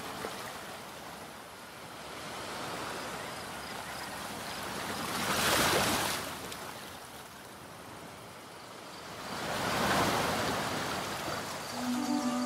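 Surf: waves washing in, with two louder breaking waves swelling up, one about halfway through and another near the end.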